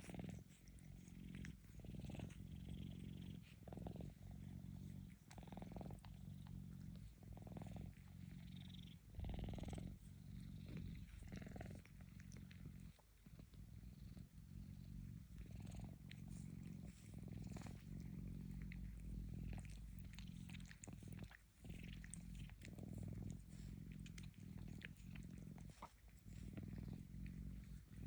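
Domestic cat purring: a low, steady rumble that breaks briefly about every second, with each breath.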